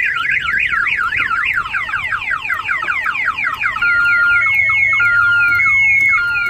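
Clifford car alarm siren going off as someone tries to start the armed vehicle, cycling through its tones. First a fast up-and-down warble about three times a second, then quick falling chirps, then from about four seconds in two steady alternating tones with falling sweeps between them.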